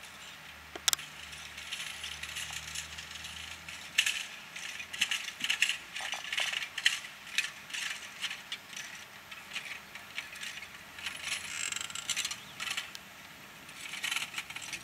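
Newag SA-138 diesel railbus running along station tracks: a low engine hum fades out after the first few seconds, with irregular clicking and clattering of wheels over rail joints and points.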